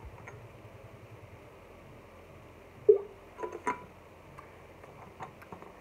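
Handling noise as a water bottle propping up a phone is taken away to drink from: one sharp knock with a brief squeak about three seconds in, then a few small clicks and taps over a faint background hiss.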